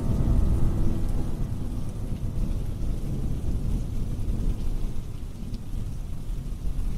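Steady rain with low rolling thunder, a storm ambience, with the tail of a piano music cue fading out in the first second.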